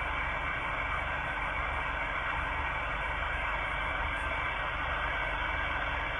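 Steady hiss of a Sony IC voice recorder's EVP recording being played back, with a faint steady whine under it. The sound is thin, with nothing in it above the top of a voice.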